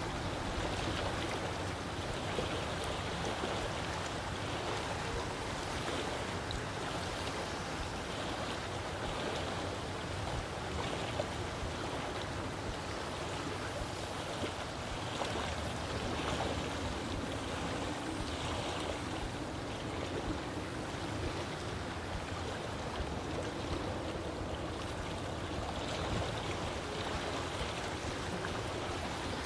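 Steady rush of lake water, an even wash of noise with no clear rhythm or engine tone.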